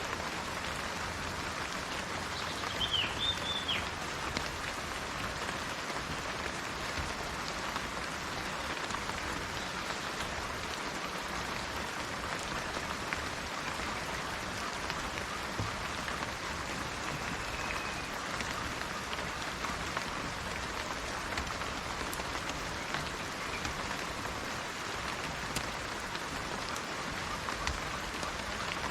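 Steady rain falling in an even hiss. A bird calls briefly with a few quick rising and falling notes about three seconds in, and a single faint call comes near the middle.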